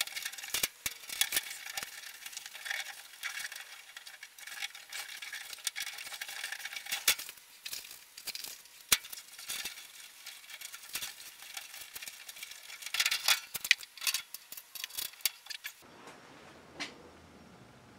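Rapid clicks, clinks and rustles of hand assembly work on a steel media blast cabinet, sped up along with the picture so they run together as a high-pitched chatter. It cuts off suddenly near the end, leaving a faint low hum and a single click.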